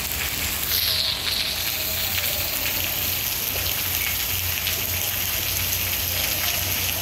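Steady rain falling on a railway station platform and tracks, an even hiss.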